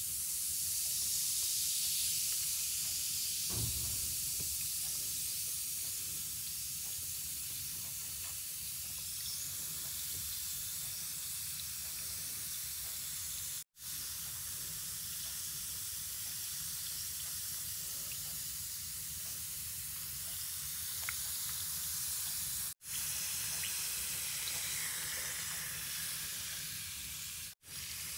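Bath bomb fizzing in a bowl of water, a steady hiss that swells at the start as it dissolves, with a soft thud about three and a half seconds in. The sound cuts out briefly three times.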